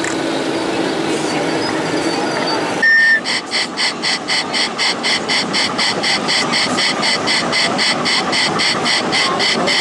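Electronic engine sound of a 1/16-scale RC tank's sound unit: a steady hum with a low tone, then about three seconds in a short loud beep followed by an even rhythmic engine beat, about three to four pulses a second.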